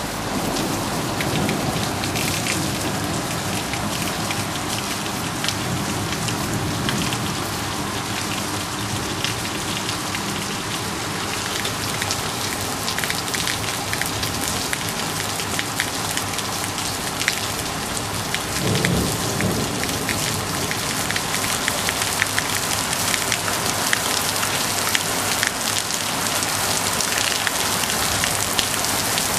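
Heavy rain falling steadily, a dense hiss of rain with many individual drops striking hard surfaces. A short low rumble rises briefly about two-thirds of the way through.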